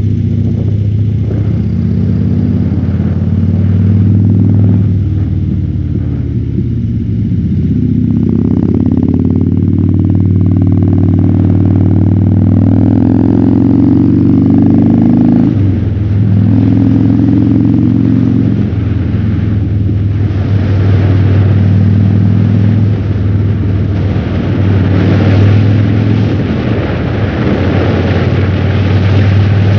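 Harley-Davidson Fat Bob's V-twin engine running through a KessTech ESM3 exhaust in legal mode while riding. The revs climb steadily, fall sharply at a gear change about halfway, then climb again, with wind rushing over the helmet-mounted microphone and growing stronger near the end.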